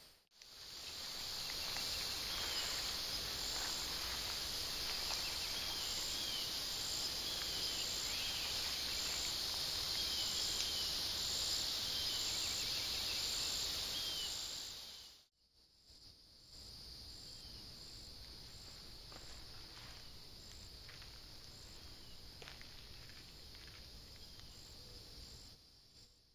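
Chorus of insects: a continuous high buzzing with a faint regular pulsing above it, and a few short chirps in the first half. About halfway through it cuts out and comes back quieter.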